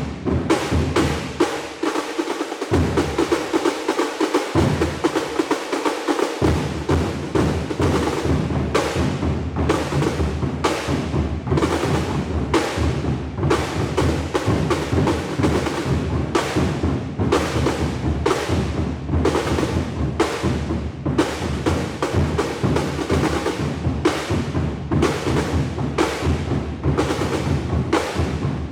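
Drumline playing a fast, driving cadence on snare and bass drums, with rolls. The deep bass drums drop out for a few seconds near the start and come back about six seconds in.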